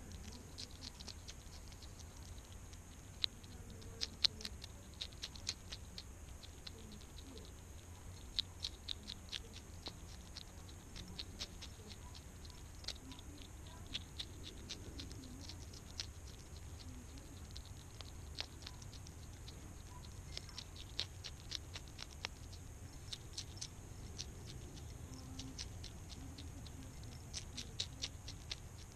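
European hedgehog eating from a dish at close range: sharp chewing clicks in quick runs of several a second, broken by short pauses, over a steady low hum.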